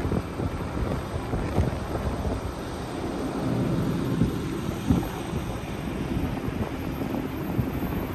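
Steady low rumble of city street traffic, with wind buffeting the microphone.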